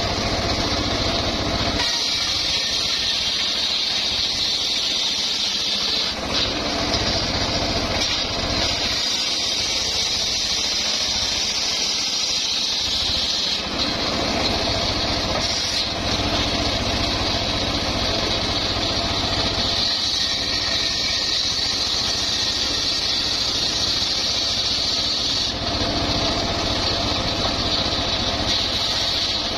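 Homemade circular sawmill running, its spinning blade ripping wooden planks lengthwise into rafters. Loud and continuous, with the sound changing every few seconds as boards are fed through and come off the blade.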